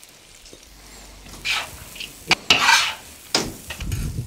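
Carrots being stirred in a kazan of frying plov with a metal utensil: scraping swishes and a few sharp clacks of metal on the pot, over a low sizzle. The cold carrots just added have stopped the vigorous frying in the kazan.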